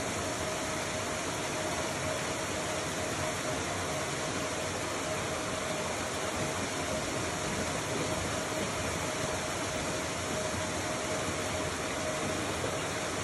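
A motor running steadily: a constant mid-pitched hum over an even hiss.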